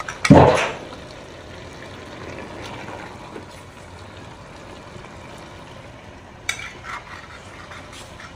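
A long metal spoon lifting fish out of a pot of soup and serving it onto a plate. A loud splash and knock come in the first second, then a soft steady liquid sound, and a few sharp clicks of metal on the pot or plate near the end.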